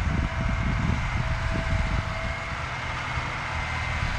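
John Deere 8360R tractor's six-cylinder diesel running steadily under load as it pulls a six-bottom rollover plow through the ground, growing a little fainter as it moves off.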